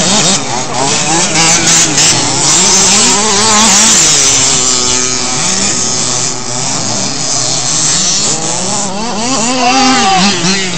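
Several radio-controlled off-road race cars' motors revving and easing off as they race, overlapping whines that rise and fall in pitch.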